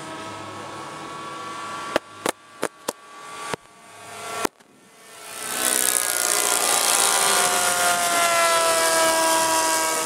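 Several radio-controlled model warplane engines droning together, cut by six sharp bangs in quick succession about two to four and a half seconds in from pyrotechnic ground charges. After the last bang a loud rushing noise rises and holds, while the engine notes slide down in pitch as the planes pass.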